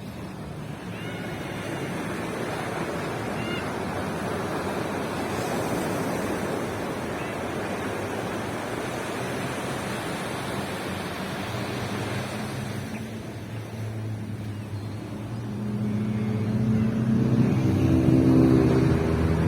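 Waves breaking and washing on a sandy beach. Near the end an engine comes up, gets louder and passes, loudest just before the end.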